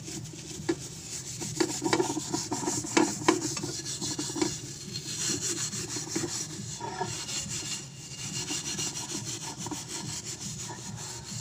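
Steel wool pad scrubbing the bottom of a metal frying pan: a continuous rhythmic rasping rub, with a few sharper knocks in the first few seconds.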